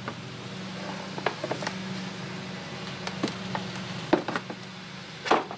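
Hard plastic seat of a battery-powered toy Jeep knocking and scraping against the plastic body as it is lifted and fitted down over the battery, several separate clunks with the loudest two near the end. A steady low hum runs underneath.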